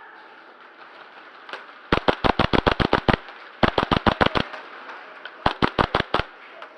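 An airsoft rifle fires three rapid bursts of full-auto shots close to the microphone, at about seven or eight shots a second. The first burst starts about two seconds in and is the longest.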